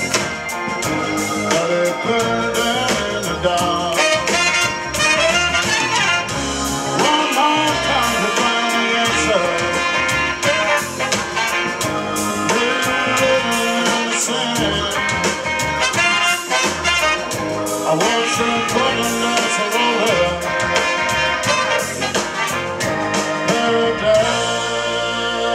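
Live blues band playing an instrumental passage, with trumpet and saxophone playing together over electric guitar, bass guitar and drums.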